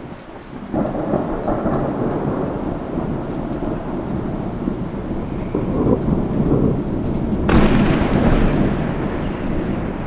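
Thunder: a long rolling rumble that starts about a second in, then a louder, sharper crack about seven and a half seconds in that rolls away slowly.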